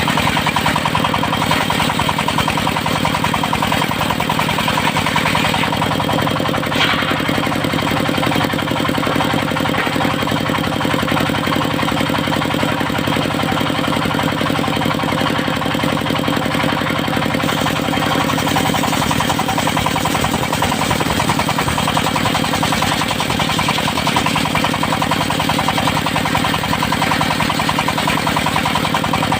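Engine of a portable circular sawmill running steadily with a fast, even knocking rhythm as it drives the saw. A brief sharp sound stands out about seven seconds in.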